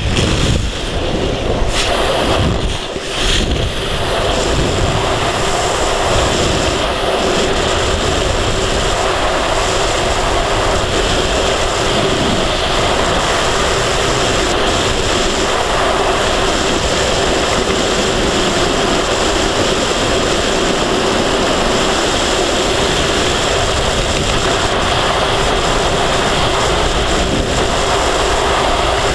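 Loud, steady rush of freefall wind over a skydiver's camera microphone. In the first few seconds the noise is uneven, with a brief dip about three seconds in, as the jumpers go from the open-door aircraft into freefall.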